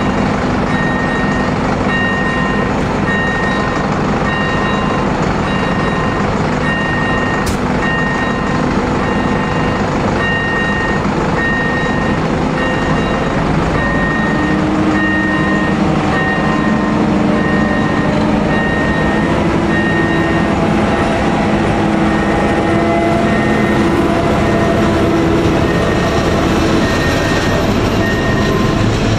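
Level-crossing warning bell (AŽD 97 crossing with ZV01 electronic bell) dinging at a steady, even beat as a warning that a train is coming. From about halfway through, a ČD class 754 'Brejlovec' diesel-electric locomotive is heard approaching, its engine growing louder, with the train's wheels rumbling as it reaches the crossing near the end.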